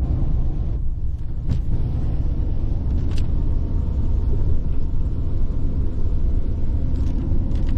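Vehicle cabin road rumble from driving on a rough dirt road, a steady low rumble with a couple of faint knocks.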